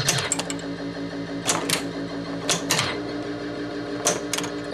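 A 1980 Williams Firepower pinball machine in play. Its flippers and playfield coils give sharp clacks, mostly in quick pairs, about three or four times, over a steady electronic tone from the game's sound board.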